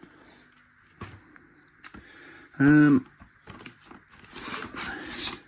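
Cardboard firework cake boxes being handled and turned: a few knocks, then rustling and scraping near the end. A brief vocal sound comes just before the middle.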